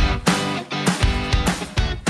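Intro music: a guitar-driven rock track with a steady drum beat.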